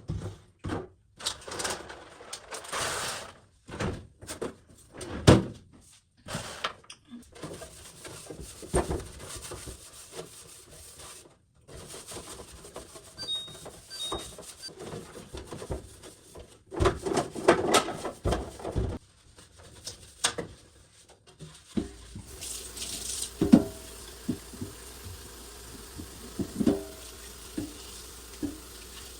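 Irregular clatters, knocks and rubbing as household items and containers are handled, moved and set down while a fridge is cleared and organised. From about three-quarters through, a steady low hum lies under sparser, sharper knocks.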